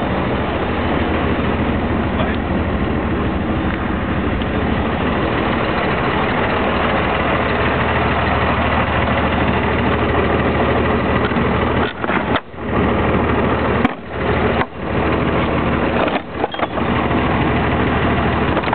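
Mercedes-Benz 1318 truck's diesel engine running steadily at low revs as the truck backs up to the doors, with the sound briefly dropping out a few times near the end.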